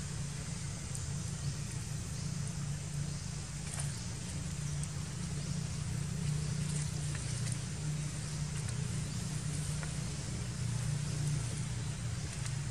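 Steady low hum with faint scattered clicks over it.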